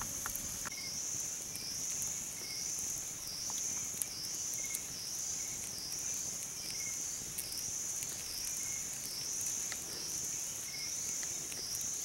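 Insects droning in the surrounding jungle: a steady high-pitched buzz that swells and dips about once a second.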